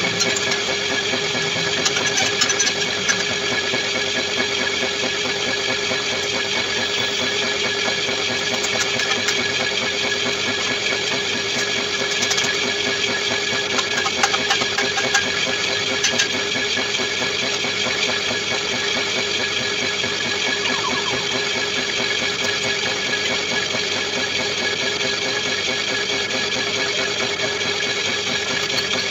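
Metal lathe running with a boring bar cutting inside the bore of a rotavator hub, enlarging it to take a sleeve: a steady machine hum with occasional short clicks.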